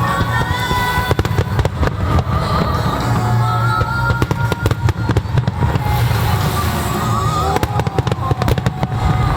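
Starmine fireworks firing in a rapid barrage, many shell bursts cracking and booming in quick succession, over music from loudspeakers played in time with the display.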